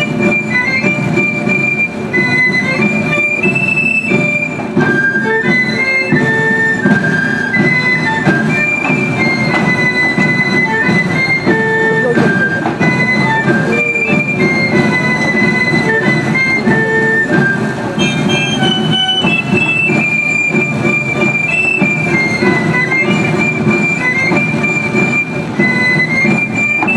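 Traditional Provençal dance music for the cordelles ribbon dance: a shrill galoubet (three-hole pipe) playing a high stepping melody over a steady low tambourin drum accompaniment.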